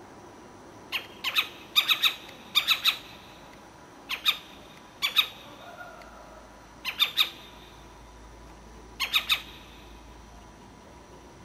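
An owl giving short, harsh, squawking calls in quick groups of two or three, the groups repeated every second or two.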